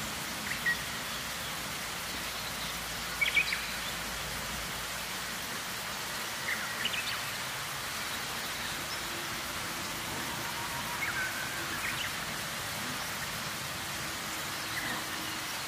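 Steady outdoor hiss with a few short, high bird chirps scattered through it.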